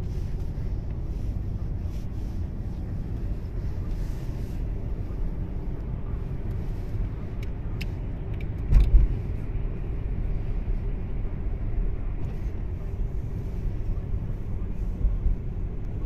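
Steady low rumble of a car driving, with one louder thump about nine seconds in.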